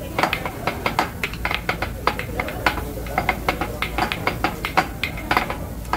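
Hibachi chef's metal utensils clacking against the steel griddle, quick irregular strikes several times a second.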